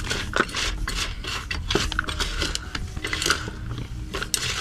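Potting soil and gritty succulent substrate being mixed and filled into a clay pot, with irregular scraping, rustling and small clinks.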